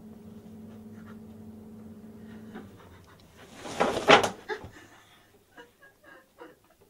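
A steady low hum stops a couple of seconds in. Then comes a loud rush of heavy, panting breath lasting about a second, followed by a few faint short breaths.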